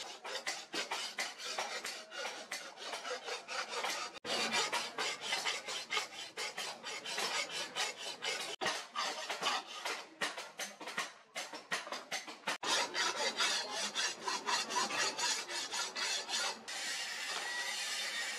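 Hand file drawn back and forth over a forged steel machete blade in quick, rasping strokes, about three to four a second, shaping and cleaning the metal.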